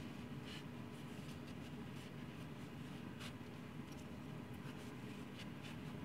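Faint cloth rubbing and light handling scrapes as an oil-soaked pocket knife is wiped with a rag, a few brief scratches over a steady low hum.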